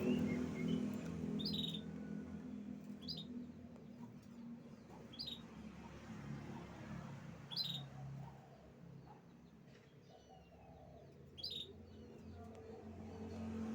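Canary giving short, separate chirps every second or two, with a few thin gliding notes in between, over a steady low hum.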